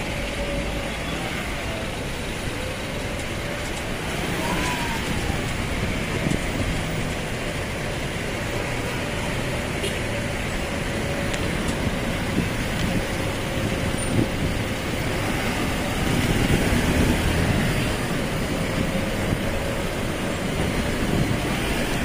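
Road traffic on a busy city street: a steady rumble of passing cars and trucks, with a faint wavering engine hum.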